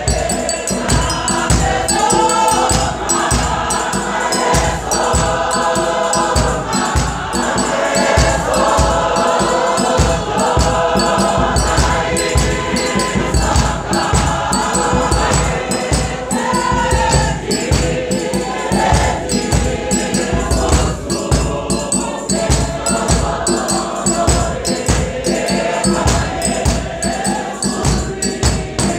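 A large church congregation of men and women singing a hymn together, many voices in unison and harmony over a steady beat.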